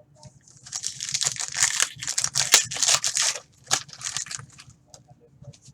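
A trading card pack's wrapper being torn open and crinkled, a dense crackling rustle for about three seconds, followed by a few sharp crinkles.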